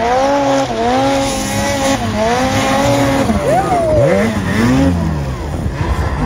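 Snowmobile engine revving hard under load in deep powder, its pitch rising and falling with the throttle. Around three and a half to five seconds in the pitch swoops up and then drops as the sled passes close by.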